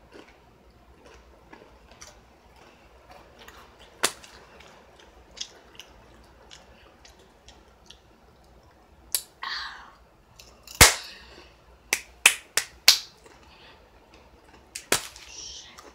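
A series of sharp clicks close to the microphone: one about four seconds in, the loudest about eleven seconds in, and four in quick succession a second later, with short rustles at about nine and a half and fifteen seconds.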